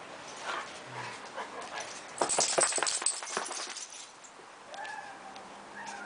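American Staffordshire terrier vocalising: a quick flurry of short noisy sounds about two seconds in, then a faint, thin whine near the end.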